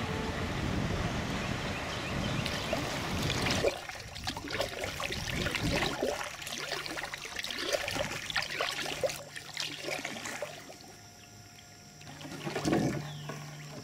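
Kayak paddling: water splashing and dripping off the paddle in irregular strokes, with one louder splash about a second before the end. It follows a few seconds of steady outdoor hiss.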